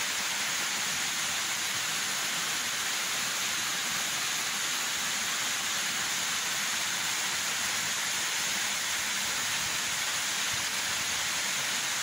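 Small waterfall: water running and splashing down a sloping rock slab, a steady, even noise of falling water.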